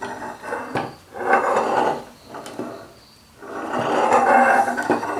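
Homemade manual pipe bender being worked by hand: its steel lever swings around the pivot and the nylon roll drags against the steel, giving a rough creaking rub. The rub comes in two long passes, one about a second in and a longer one from the middle on, with a few metal clicks between.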